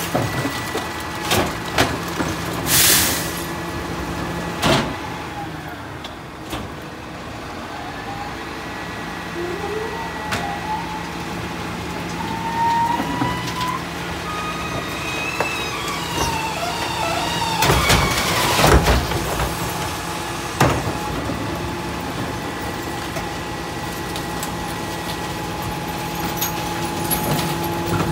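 Garbage truck idling with its hydraulics running while recycling carts are tipped and banged against the Heil rear loader's hopper. Sharp bangs come a few seconds in and again in a loud clatter about two-thirds through. In between, rising and falling hydraulic whines come as the packer blade cycles to compact the load.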